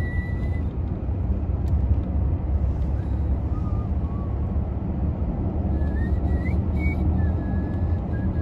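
Steady low road and engine rumble inside a moving car's cabin. Over it, a person whistles a wandering tune in short phrases, softer than the rumble.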